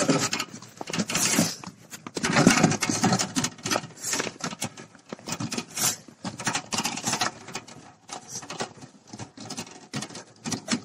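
Homemade hand-pushed snow plough, a scraper blade on a two-wheeled cart, being pushed through fresh snow: the blade scrapes and the snow crunches in uneven scratchy surges.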